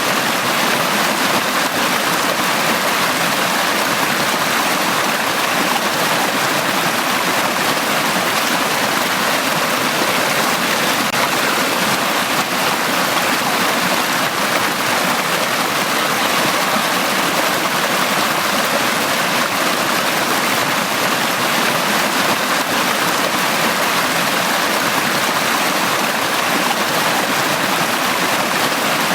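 Mountain stream running steadily over rocks in a valley, an even rushing and gurgling of water.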